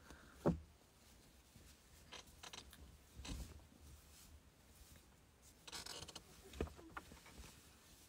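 Cloth rustling as a cotton shirt is handled and pulled over the head, with a few knocks and bumps against the microphone. The loudest is a thump about half a second in.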